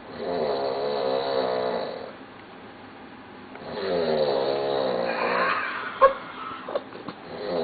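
A person passed out drunk, snoring loudly: two long, wavering snores of about two seconds each with a quiet breath between them. A sharp click comes about six seconds in, followed by a couple of faint ticks.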